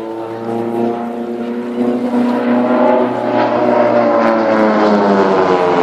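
Propeller-driven aircraft flying past. Its engine note grows louder and rises in pitch until about halfway, then falls steadily as it passes.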